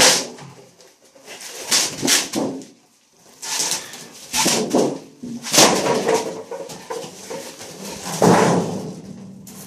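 Sheet-metal outer casing of an electric water heater being pried and torn off its foam insulation: a string of creaks and scrapes, roughly one every second, with short pauses between.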